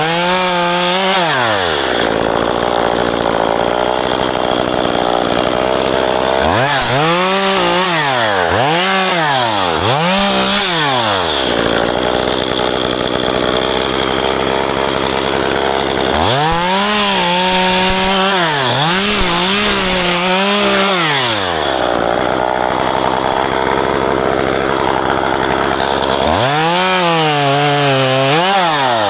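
Two-stroke chainsaw revved up and let back down again and again while cutting ficus branches: once at the start, three quick revs about seven seconds in, a cluster of revs around sixteen to twenty seconds, and once more near the end. A steady engine noise runs underneath throughout.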